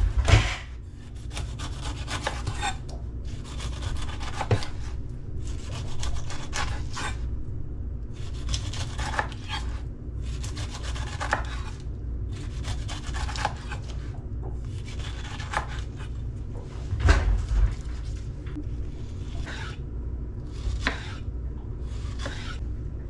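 Chef's knife cutting down through the tough rind of a whole pineapple on a wooden cutting board: a dozen or so strokes, each about a second long and one to two seconds apart, with a sharper knock of the knife on the board at the very start and again about seventeen seconds in. A steady low hum runs underneath.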